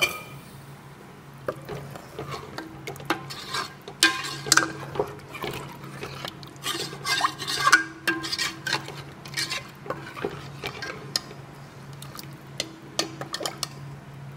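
A metal ladle stirring thin curry gravy in a metal cooking pot, with irregular clinks and scrapes against the pot's sides and bottom. Water has just been added to the fried masala to make the gravy.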